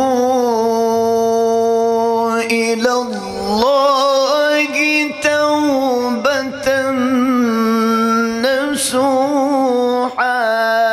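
A man's melodic Quran recitation (tilawat), sung in long held notes with wavering ornamental turns and a rising glide. Short breaks come about three seconds in and again near the end.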